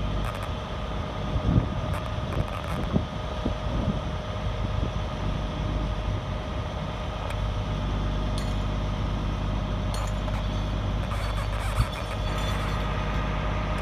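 Steady engine drone with a constant mid-pitched whine over a low rumble, broken by a sharp knock about one and a half seconds in and another near the end.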